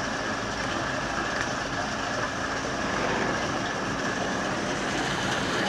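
Steady road-traffic noise: a continuous hum of vehicle engines with no single event standing out.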